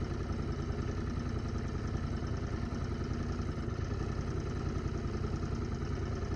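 Royal Enfield Continental GT motorcycle engine idling steadily, with an even low pulse.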